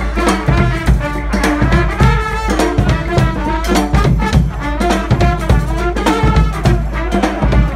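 Street brass band playing a bhangra-style tune: horns play the melody in harmony over a steady, driving drum beat.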